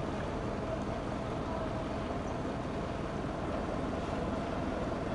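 A vehicle engine running steadily: a low rumble with a constant hum, holding the same level throughout.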